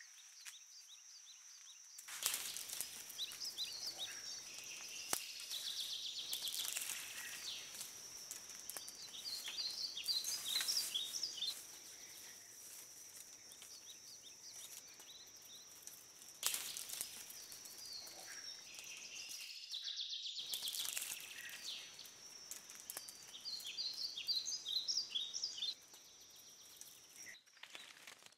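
Rainforest ambience: many birds chirping and twittering over a steady high insect whine and a background hiss. The ambience jumps abruptly in level a few times.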